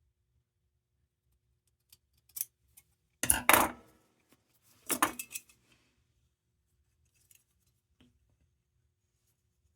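Metal and glass clinks and rattles from the lantern's parts being handled, in two short clusters about three and five seconds in, with a few small ticks before them.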